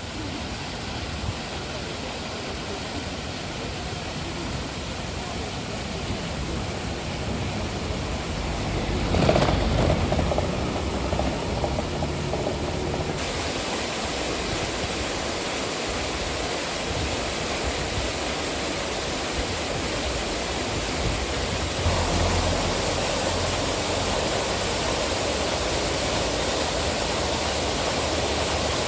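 Steady rush of fountain water mixed with a murmur of crowd voices, growing louder partway through.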